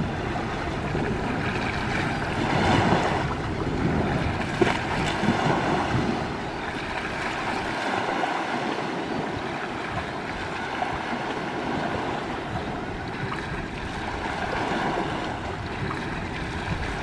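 Wind on the microphone and small waves on open water, a steady rushing noise that swells a couple of times in the first six seconds.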